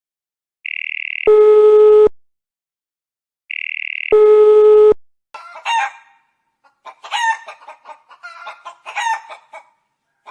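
Two rounds of a telephone-style tone, each a steady high beep followed by a louder buzzing tone, then a rooster crowing.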